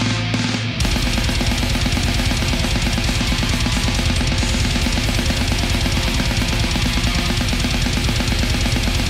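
Heavy metal music. A held low chord gives way, about a second in, to very fast, dense drumming that carries on throughout.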